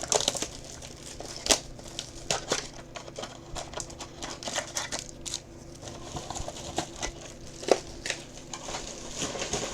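Trading-card pack wrappers crinkling and cards being handled, with irregular sharp rustles and clicks.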